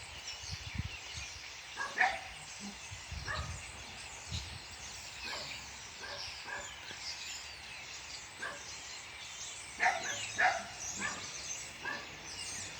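Many small birds singing and chirping together, with a dog barking now and then, several barks in quick succession near the end.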